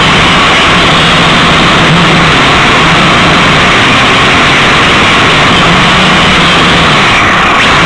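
Small quadcopter drone's motors and propellers running in flight, a loud steady whir picked up by the drone's own onboard camera microphone, with a faint low hum that wavers in pitch.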